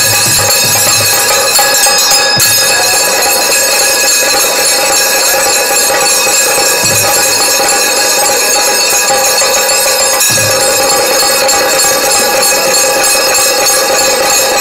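Small brass hand cymbals (taal) struck continuously, giving a loud, dense metallic ringing. Two low strokes on the sambal drum come through, one about seven seconds in and one about ten seconds in.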